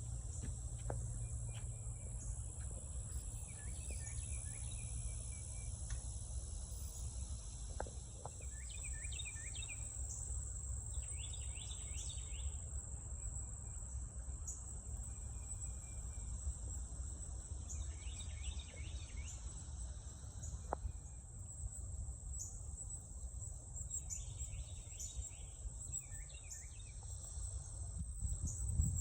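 Insects trilling in one steady, high, unbroken tone, with a second higher trill that stops about a third of the way in. Birds chirp in short bursts every few seconds over it, and a low rumble runs underneath.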